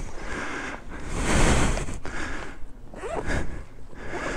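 Heavy breathing, swelling and fading in long breaths about every second and a half.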